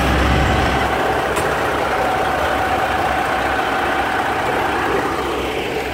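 Heavy diesel semi-truck engine idling steadily, with a constant whine above the engine rumble; the low rumble drops off about a second in.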